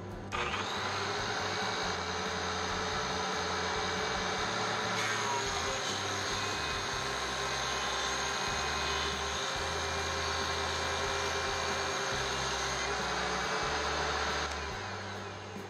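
DeWalt DW735 thickness planer with a Byrd Shelix spiral cutterhead running together with its dust collector, starting up just after the start. A board feeds through the cutterhead from about five seconds in, adding a higher, hissing edge. The noise fades near the end.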